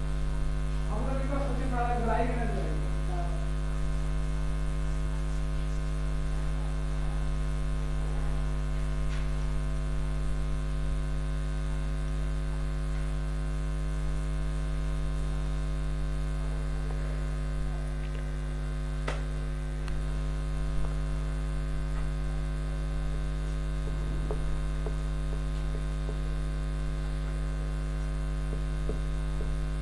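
Steady electrical mains hum: a low buzz with a ladder of higher overtones, unchanging throughout. A few faint short ticks sit under it in the second half.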